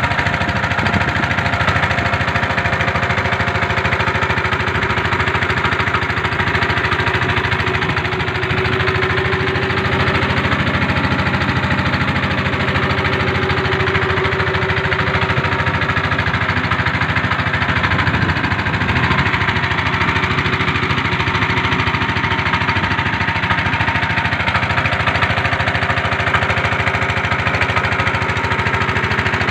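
Inboard engine of a small plastic-drum boat running steadily under way, with an even, rapid pulsing beat.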